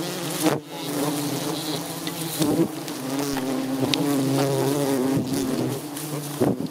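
A swarm of agitated giant honey bees buzzing densely all around, with several bees passing close by, their buzz rising and falling.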